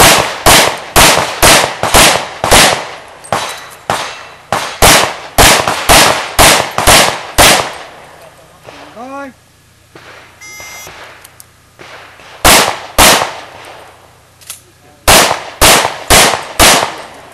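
Pistol shots fired in fast strings: about twenty quick shots over the first seven seconds or so, a pause of a few seconds, then two single shots and a rapid string of about five near the end.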